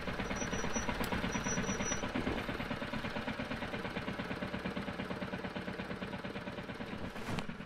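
Royal Enfield Classic 350's single-cylinder engine idling with a steady, even thump, the motorcycle standing still.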